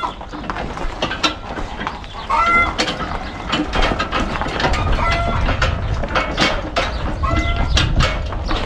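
Chickens clucking: short pitched calls, a couple of them drawn out, over scattered knocks and a low rumble.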